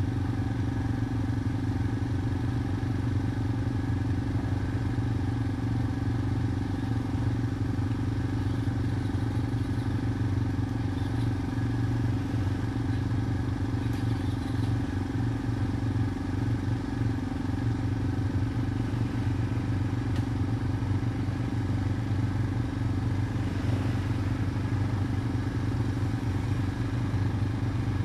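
ATV engine idling steadily, an even low hum that neither revs nor changes.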